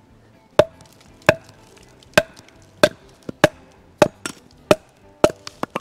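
Wooden baton striking the back of a hatchet set into a short log to split it into quarters. There are about eleven sharp knocks, roughly one every half second or so, coming faster near the end, each with a short ring.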